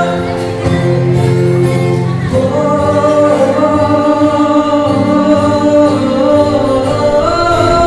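Live singing accompanied by an acoustic guitar, the voice holding long notes.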